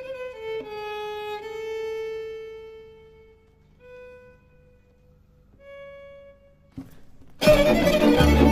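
Background music: a melody of long held notes that fade away, then a few short soft notes, and about seven seconds in a much louder, fuller piece cuts in suddenly.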